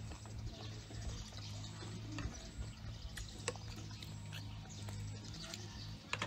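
Close-miked chewing and mouth sounds of a person eating with chopsticks. A few sharp clicks come through, two about three seconds in and a close pair near the end, over a steady low hum.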